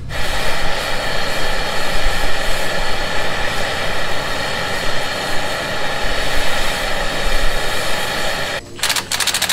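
Hand-held gas torch flame hissing steadily as it heats rusted wheel-hub bolts to free them. Near the end the torch drops out and a cordless impact wrench hammers in a rapid burst for about a second, breaking a heated bolt loose.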